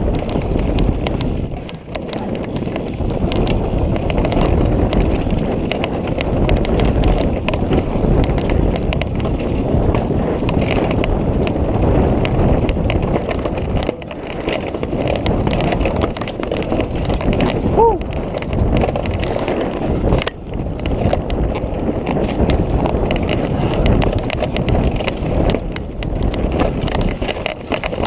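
Orbea mountain bike riding down a dry dirt singletrack: tyres crunching steadily over fallen leaves and dirt, with a constant clatter and rattle as the bike bumps over roots and stones.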